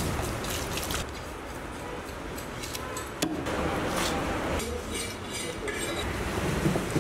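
A knife scraping and cutting a raw fish, with a few sharp clicks and clinks, the clearest about three seconds in.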